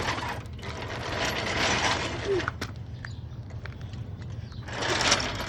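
A riding lawn mower being manhandled into position: scraping and rolling noise in two stretches, each with a short squeak.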